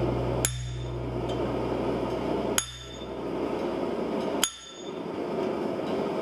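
Hammer blows on a chisel held on a red-hot forged steel leaf on an anvil, cutting the leaf's veins. There are three sharp metallic strikes about two seconds apart, each with a brief ring, and a fourth right at the end.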